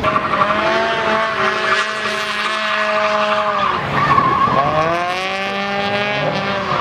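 Drift car sliding under power: the engine is held high in the revs with tyres squealing, dipping sharply about four seconds in, then climbing and holding again.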